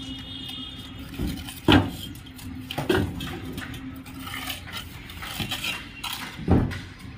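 Irregular clinks and knocks of hard objects being handled, five or so strikes spread unevenly, over a steady low hum that stops about halfway through.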